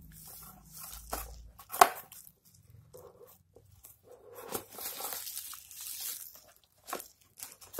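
Cardboard phone box and bubble wrap handled: irregular rustling and scraping, with a sharp knock about two seconds in. Midway comes a longer papery scrape as the red cardboard sleeve slides off the white inner box.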